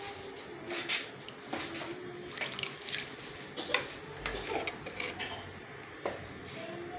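Metal ladle clinking and scraping against an aluminium cooking pot as beans are scooped from the liquid: a series of irregular sharp clinks.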